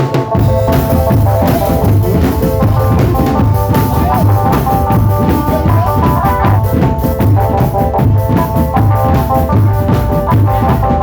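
A drum band playing: drums keep a steady beat under a melody of held notes.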